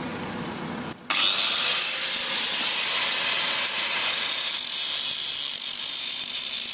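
Angle grinder with a flap disc grinding the lip off the inner edge of a car's spinning cast-iron brake disc. After a quieter first second it becomes a loud, steady grinding hiss, and it cuts off abruptly at the end.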